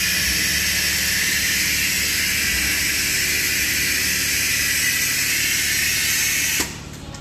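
Loud, steady hiss of compressed air, cut off abruptly about six and a half seconds in.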